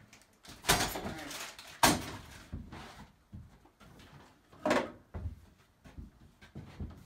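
Handling noise: a few knocks and clunks with rustling as things are picked up and set down. The sharpest knock comes a little under two seconds in, and another clunk near five seconds.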